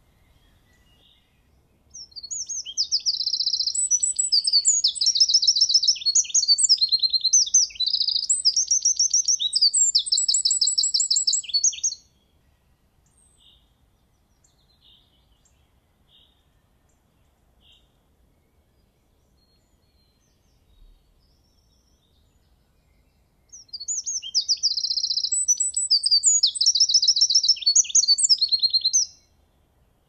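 Eurasian wren singing: a loud, hurried song of rapid, high trills, one long burst lasting about ten seconds from about two seconds in, and a second burst of about five seconds near the end, with a few faint short chirps in between.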